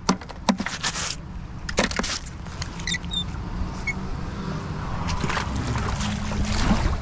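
A few sharp knocks as rusty, mud-caked metal clumps are dropped onto the bank. Then a magnet-fishing magnet is thrown on its rope and hits the creek with a splash near the end.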